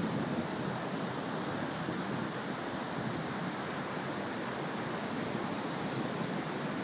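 Steady rushing noise of wind on the microphone, with no distinct engine sound.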